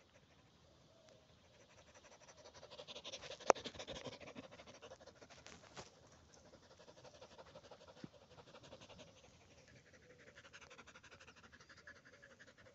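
Dog panting quickly, growing louder about two seconds in and then carrying on more faintly, with one sharp click a little after three seconds.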